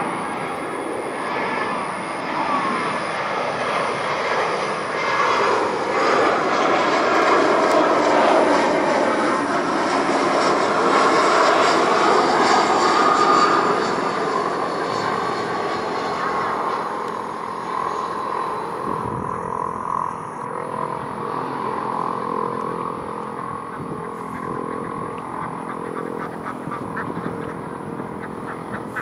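Airbus A320-200 jet airliner on landing approach flying low past: steady jet engine noise with a high whine that drops in pitch as it goes by. It is loudest about a third of the way in, then slowly fades.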